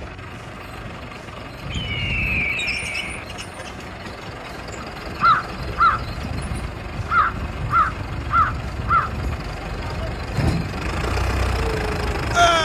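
A bird calling: a drawn-out falling note, then a run of six short, evenly spaced call notes, over a steady low rumble.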